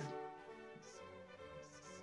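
Faint background music of steady, held tones.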